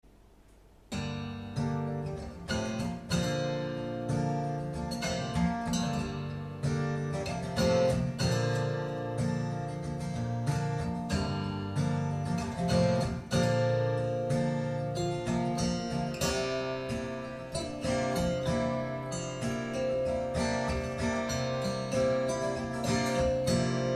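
Acoustic guitar music played through Triangle Borea BR03 BT powered speakers and picked up by microphones in the room. Plucked and strummed guitar notes start about a second in and carry on steadily.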